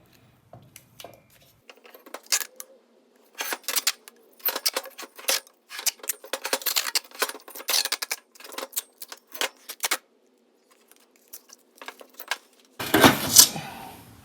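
Irregular metallic clinks and knocks of metal parts being handled and set down, then a short, loud rush of noise about 13 seconds in.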